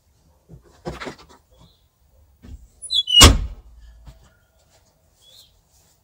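A single loud bang or slam about three seconds in, with a softer knock and rattle about a second in.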